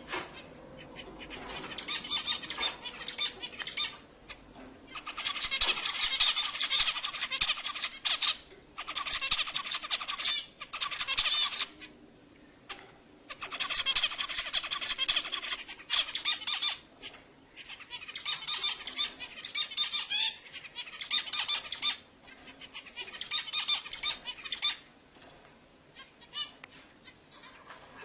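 Zebra finch song: fast, buzzy, chattering phrases of one to three seconds each, repeated with short pauses, dropping away near the end.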